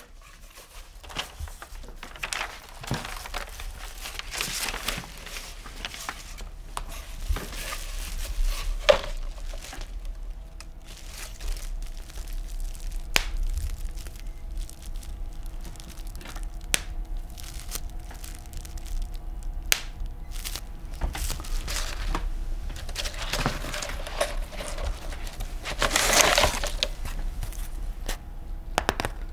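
Irregular crackling and crunching noises, broken by scattered sharp clicks and knocks, with a louder burst of crackle near the end; a faint steady hum of a few tones runs beneath from about ten seconds in.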